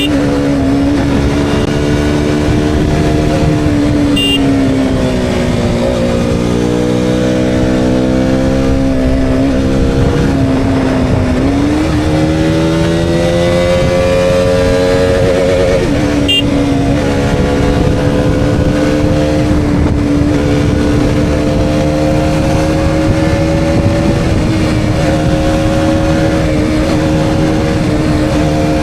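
KTM Duke 200's single-cylinder four-stroke engine pulling through the gears, heard from a helmet-mounted camera. The engine note falls twice in the first part as it slows, then rises and holds steady at high revs.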